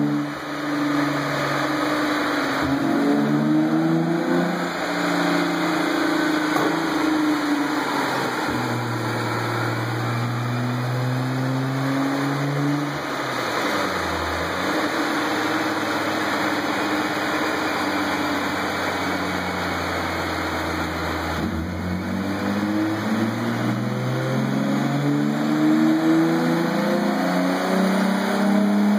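Hyundai Genesis Coupe's engine and exhaust running on a chassis dynamometer during a tuning session. The engine note climbs, drops sharply about three seconds and eight and a half seconds in, holds fairly level through the middle, then rises steadily over the last several seconds.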